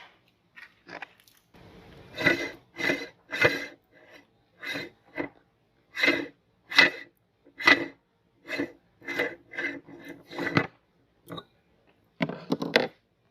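Meat grinder crunching through a crisp item in a string of short, loud crunches, about one or two a second, with a brief pause near the end.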